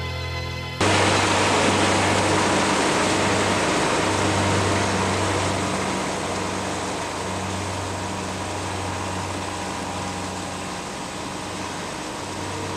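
Tractor engine running with the steady noise of an onion lifter at work, carrying onions and soil over its conveyor. It cuts in abruptly about a second in, after music.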